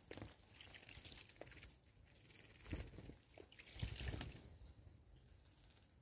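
Small birds splashing as they bathe in shallow water, wings fluttering in it: a run of light splashes, with the two loudest a little before and just after the middle.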